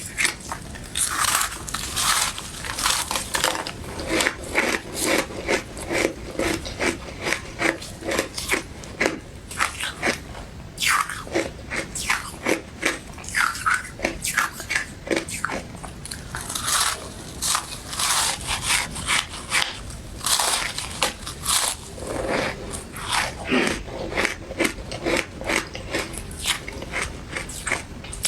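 Someone biting into and chewing powdery, crunchy ice dusted with matcha powder: a continuous run of crisp crunches, a few to the second.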